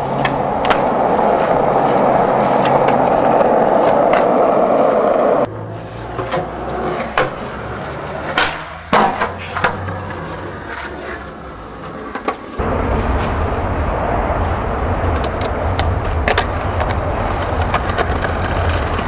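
Skateboard wheels rolling on concrete, broken by sharp clacks of the board hitting the ground. The sound changes abruptly twice, about five and a half and twelve and a half seconds in, as separate skate clips are cut together.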